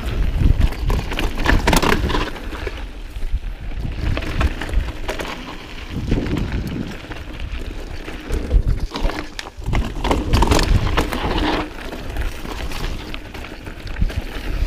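Mountain bike rolling fast down a dirt singletrack: tyres on loose dirt and stones, with the bike rattling over bumps and wind rumbling on the camera microphone.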